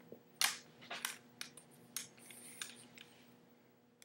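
Metal crutches and a dog leash handled close to the microphone: a handful of sharp clicks and knocks in the first three seconds, the loudest about half a second in, over a faint steady electrical hum.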